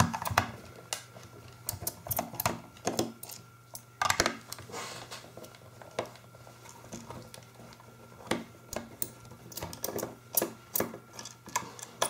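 Irregular plastic clicks and taps from a Sonoff smart plug's housing being handled and pried at to take it apart, with a short scraping rustle about four seconds in.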